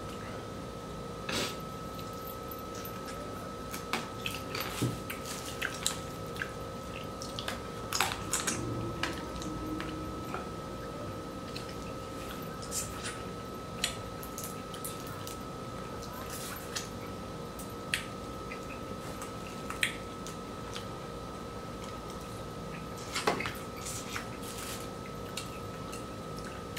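Eating sounds from a seafood boil of crab, shrimp, potatoes and corn: scattered sharp clicks and cracks of shells and utensils, with wet squishing and dripping. A faint steady tone hums underneath.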